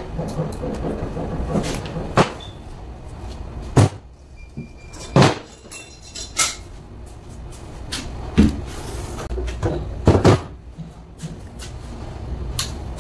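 About seven sharp knocks and clacks of hand tools and car AC parts being handled and set down on a workbench, the loudest about four, five and ten seconds in, over a low steady hum.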